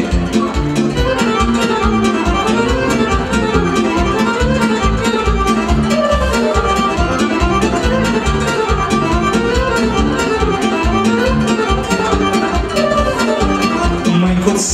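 Live band playing an instrumental passage of Romanian folk dance music: a fiddle-like lead plays fast, winding runs over a steady, quick dance beat.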